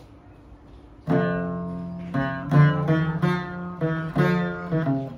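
Chapei, a Khmer long-necked lute, being plucked: after a short pause, a run of quick single notes begins about a second in, over a low open string that keeps ringing underneath.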